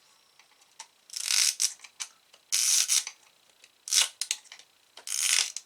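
Flat-blade screwdriver prying a Motorola 68000 processor out of its tight IC socket: four short scraping bursts, with small clicks in between, as the chip is worked loose.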